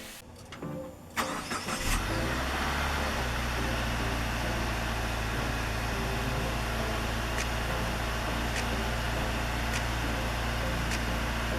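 2017 Subaru Forester XT's turbocharged 2.0-litre flat-four starts about a second in, is briefly louder as it catches, then settles into a steady idle. The exhaust runs through a WRX mid-pipe that lacks the middle resonator.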